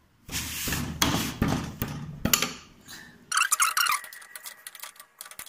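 A 24 mm wrench loosening the rear axle nut of a Honda Activa scooter, metal scraping and clanking with a few sharp knocks. About three seconds in comes a short burst of rapid metallic clicking, then scattered light ticks.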